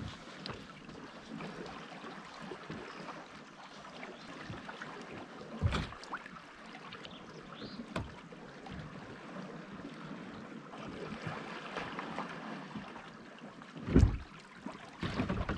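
Steady wind and sea ambience on a rocky foreshore. A few dull bumps on the microphone stand out, the loudest about fourteen seconds in.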